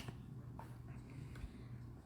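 Quiet room tone with a steady low hum and a couple of faint clicks.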